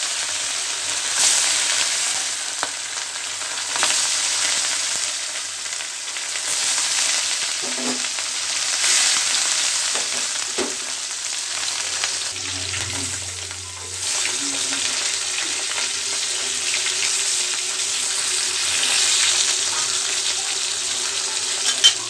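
Rohu fish steaks frying in hot oil in a metal kadai: a loud, steady sizzle that swells and eases. There are a few faint knocks, and one sharp click near the end.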